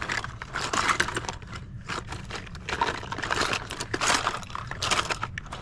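Irregular rustling with light clicks and scrapes as small old collectibles and their packaging are handled and rummaged through by hand.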